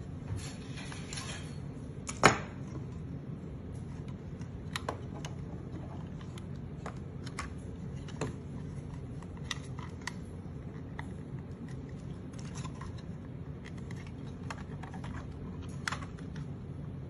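Scattered small clicks and taps of hard plastic parts of a transforming robot figure's lower leg and a screwdriver being handled, with one louder click about two seconds in, over a steady low hum.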